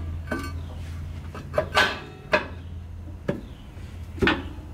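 Brake drum of a Ford 4000 tractor being pushed and rocked onto its wheel hub: about six short metal knocks and scrapes at uneven intervals. The drum fits tight on the hub because of new paint.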